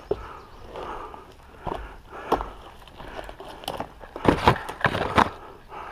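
Irregular scuffs and knocks of a climber's sneakers and hands against a crumbling brick and concrete wall, with a cluster of louder knocks about four to five seconds in.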